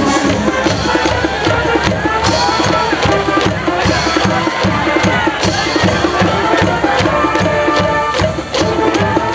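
School cheering section in the stands playing a baseball cheer song on brass and drums, with a fast steady drum beat under the melody.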